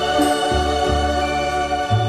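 Instrumental intro of a song: held chords over a bass line that moves from note to note every half second or so.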